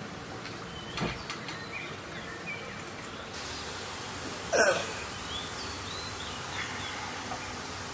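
Quiet background hiss with a few faint high chirps and a click about a second in. About four and a half seconds in comes one short, loud throat sound from a person, like a cough or hiccup.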